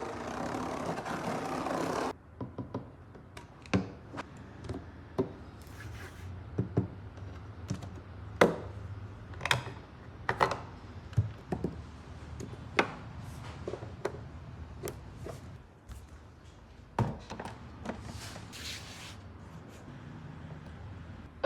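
Scattered light knocks and taps at irregular intervals over a steady low hum. A louder rushing noise fills the first two seconds and cuts off suddenly.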